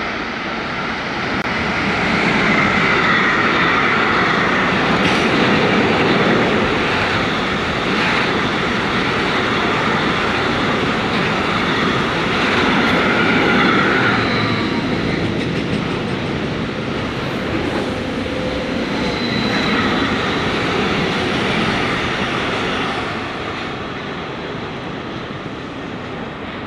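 Container freight train running past at speed: a steady loud rumble and rattle of wagon wheels on the rails, fading as the train draws away near the end, with a brief high wheel squeal twice.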